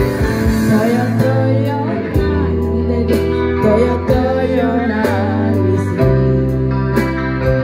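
Live band: a woman singing into a microphone over an electronic keyboard and an electric guitar, amplified through a PA speaker, with a steady beat.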